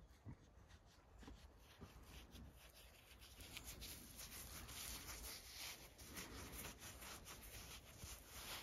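A gloved hand rubbing and scratching a sheep's woolly head and neck, giving a faint scratchy rustling that grows louder about three seconds in.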